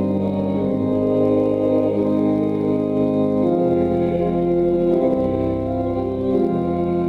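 Church organ playing slow, sustained hymn chords that change every second or so.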